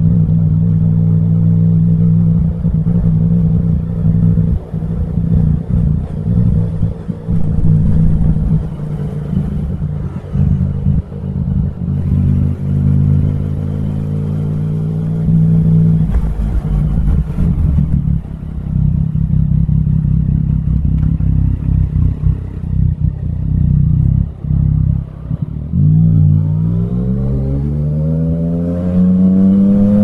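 Yamaha MT-09 motorcycle engine and exhaust heard from the rider's seat, running under changing throttle in traffic with several brief drop-offs. Near the end the engine note dips, then climbs steadily in pitch as the bike accelerates.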